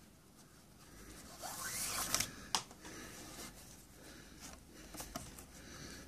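Nylon paracord sliding through a weave as it is pulled by hand: a soft rasping slide that rises about a second and a half in, followed by a sharp tick, then fainter rubbing and small ticks as the cord is worked.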